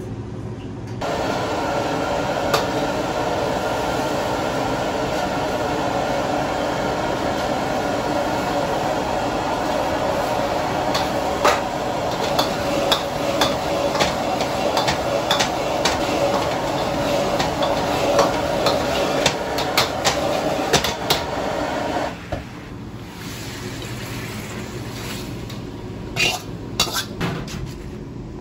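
Metal ladle clinking and scraping against a wok as braised pieces are stirred in their sauce, over a steady rushing kitchen noise. The rushing cuts out about 22 seconds in, and a few more sharp clinks come near the end.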